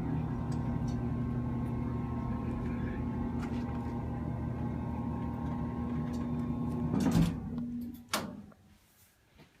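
Elevator motor running as the car travels: a steady hum with a constant tone. It stops with a clunk about seven seconds in, and another click follows about a second later.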